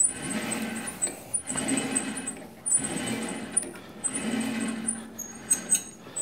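Metal lathe chuck and spindle turned by hand in repeated part-turns to drive an M5 tap, hand-tapping a thread. Each stroke brings a swell of mechanical noise with sharp clicks, about four strokes roughly a second and a half apart.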